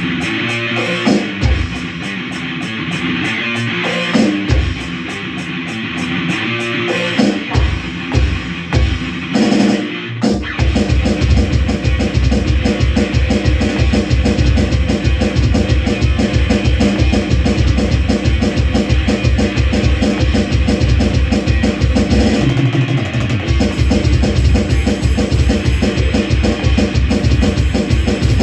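Rock band rehearsing: guitar with scattered drum hits, then about ten seconds in the full band comes in with fast, steady drumming under the guitar. There is a short break about two-thirds of the way through before it carries on.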